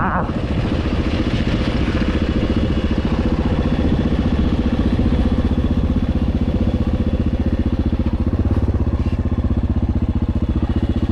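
Yamaha XT 600's single-cylinder four-stroke engine running steadily, with an even, rapid beat of firing pulses.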